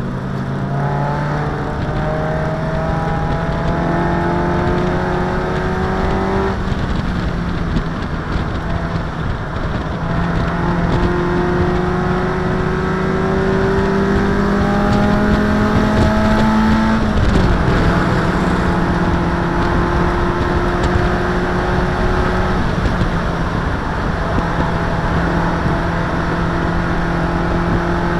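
Race car engine heard from inside the cockpit, pulling hard with its pitch climbing slowly through the gear, over road and wind noise. About seventeen seconds in the pitch drops sharply at a gear change, then starts climbing again.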